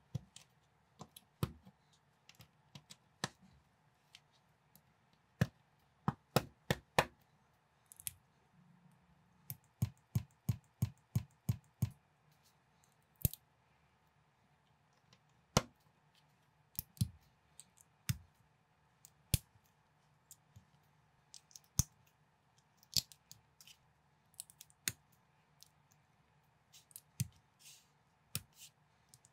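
Plastic building bricks clicking as they are snapped and pressed together by hand, in irregular sharp clicks, with a quick run of clicks about a third of the way through.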